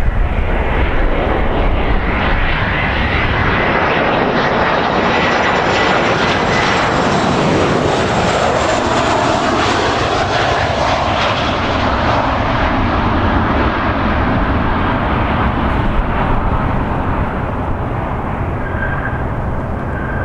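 Boeing 737-500 airliner's CFM56 turbofan engines on landing approach, passing close by: the engine noise swells to its loudest about halfway through, a whine in it falling in pitch as the jet goes past, then eases off.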